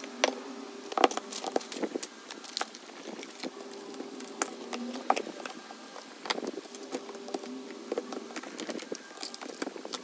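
Desk items being picked up and set down while a desk is cleared: irregular light knocks, taps and clatter, the loudest about a second in, over a faint steady hum.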